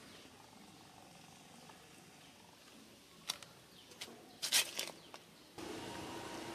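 Faint outdoor background with a sharp click about three seconds in and a short cluster of loud crackling clicks a second later, then a louder steady background with a faint steady hum near the end.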